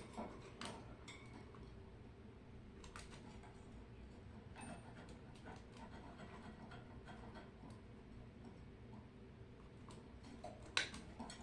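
Pet birds moving about their cage: faint, scattered light clicks and taps, with one sharper tap near the end.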